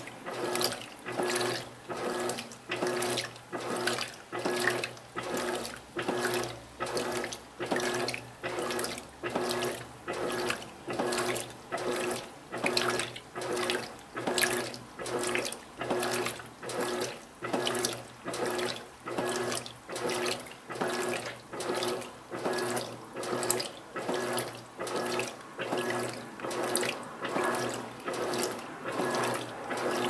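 Electrolux Silent Control 12 kg top-loading washing machine agitating a full load of bedding and towels at high water level: the four-blade agitator swishes the water back and forth in a steady rhythm of about three strokes every two seconds, with a low motor hum under each stroke.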